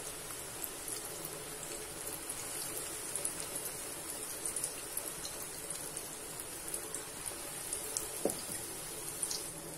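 Batter-coated potato balls (aloo vada) deep-frying in hot oil: a steady sizzle dotted with fine crackling pops.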